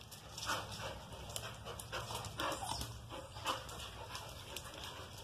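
Chow Chow dogs panting in quick, irregular breaths, with scattered light clicks, while excited to be let out.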